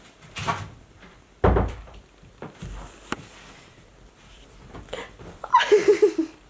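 A handful of knocks and thumps, the loudest about a second and a half in, then a short pulsing voice-like sound near the end.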